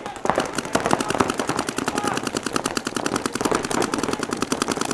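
Several paintball markers firing rapid strings of shots at once, a fast, dense rattle of sharp pops that sets in just after the start.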